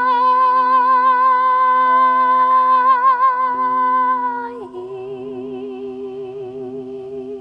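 A voice sings a long held note with vibrato over the steady, slowly pulsing ring of a crystal singing bowl. About four and a half seconds in, the voice drops to a lower, softer note while the bowl rings on.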